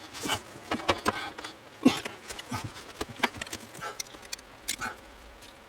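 Irregular clicks and rattles of plastic wiring-harness connectors and loose wires being worked and pulled apart by hand. The sharpest click comes about two seconds in.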